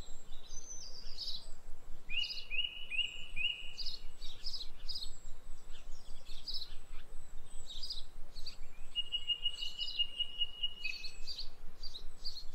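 Several birds chirping and singing, calls overlapping in a steady chorus, with a rapid trilled call about nine seconds in.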